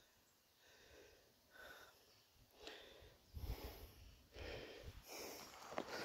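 Faint heavy breathing of a man out of breath from climbing a steep hill, a breath about every second, starting about a second and a half in, with soft footsteps through dry grass.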